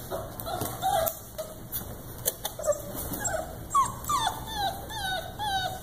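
Young puppies whimpering and whining: a string of short, high whines that each fall in pitch, coming thicker in the second half.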